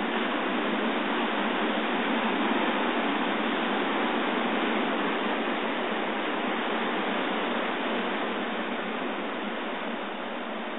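Surf washing over a rocky shoreline at high tide: a steady rushing hiss of breaking waves that swells a little a couple of seconds in and eases toward the end.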